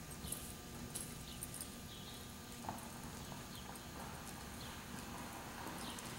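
Hoofbeats of a horse loping on the soft dirt footing of an indoor arena, a faint beat that repeats with each stride.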